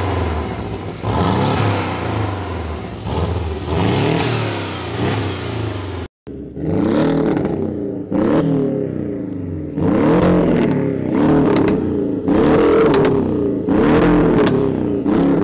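Porsche 718 Boxster's 2.0-litre turbo flat-four, fitted with a catless downpipe and a Stage 2 tune, being revved. At first it revs in longer sweeps. After a brief break about six seconds in comes a run of quick throttle blips about one a second, with sharp cracks on some lift-offs.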